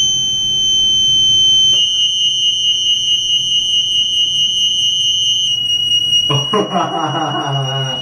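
Lift alarm buzzer sounding one continuous high-pitched tone that switches on abruptly and holds steady: the sign that the lift has stopped and is stuck. A voice joins about six seconds in.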